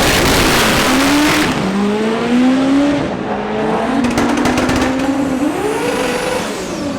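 Front-wheel-drive drag car accelerating hard down the strip: a loud rush of exhaust noise for the first second and a half, then the engine pitch climbs and drops back several times as it shifts up through the gears.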